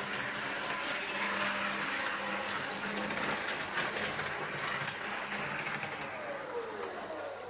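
Electric locomotive running, heard from the train: a steady rushing running noise with a hum, and a motor whine that falls in pitch near the end as the noise fades.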